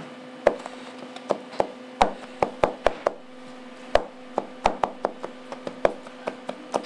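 Chef's knife chopping olives on a plastic cutting board: sharp blade knocks in quick, uneven bunches, with a short pause midway. A steady low hum runs underneath.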